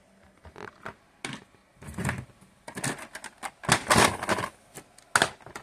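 Irregular clicks, taps and knocks of things being handled on a tabletop, closest together a few seconds in, with one sharp knock near the end.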